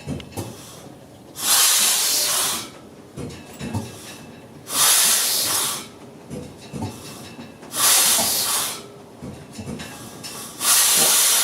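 Large low-speed Crossley stationary diesel engine running slowly, giving a loud hissing puff about every three seconds, with soft knocks between the puffs.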